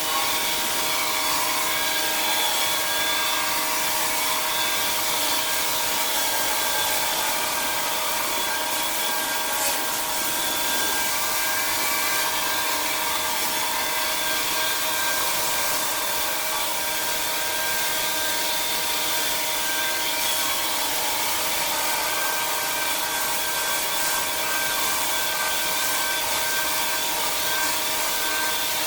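Pressure washer running and spraying: a steady water-jet hiss over an even machine hum with several fixed tones, unchanging throughout.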